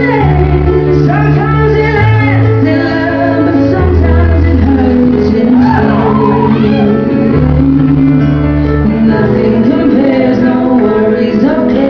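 Music: a song with singing over sustained bass notes that change every couple of seconds.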